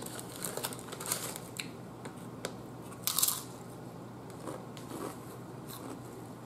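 A plastic snack-chip bag crinkling as it is handled, and crunchy chips being bitten and chewed, with a louder burst of crackle about three seconds in.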